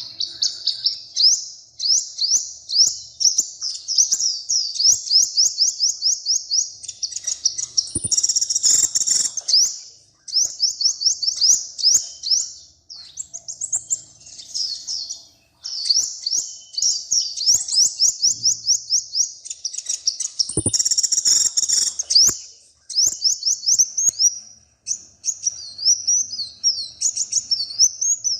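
A small songbird singing in long, high-pitched phrases of rapid repeated notes, broken by short pauses, with a few faint clicks.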